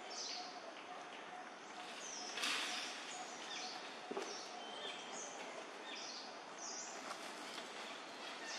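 Forest ambience: birds giving short, falling chirps every second or so over a steady hiss, with a brief rustle about two and a half seconds in.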